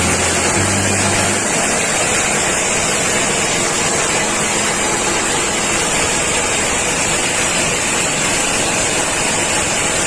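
Engine-driven forage chopper running steadily, a dense, even machine noise with no pauses.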